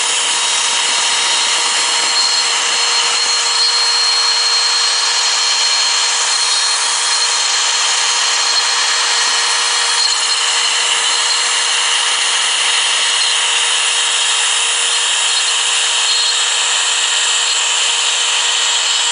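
Home CNC router cutting wood: the spindle and bit make a steady, high-pitched whine over dense cutting noise, without a break.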